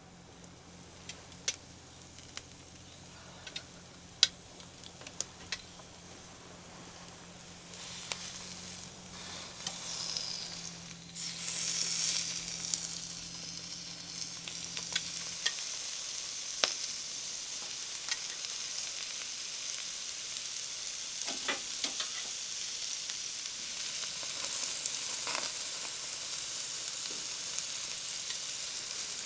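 A few sharp clicks and knocks, then from about eight seconds in, food frying in a hot pan: a sizzle that swells and then holds steady.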